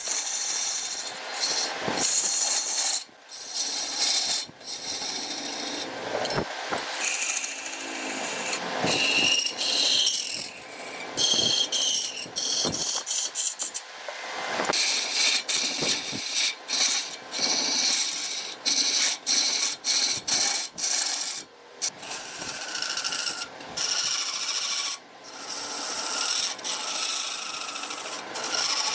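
Wood turning on a lathe, a tool scraping and cutting into the spinning wood: a rough, rasping hiss that breaks off and resumes abruptly many times, with a brief squeal now and then.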